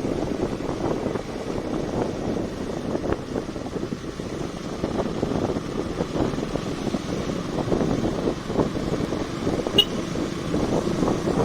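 KTM Duke 200's single-cylinder engine running while the bike is ridden, a steady rumbling mixed with road and wind noise. A brief sharp click sounds about ten seconds in.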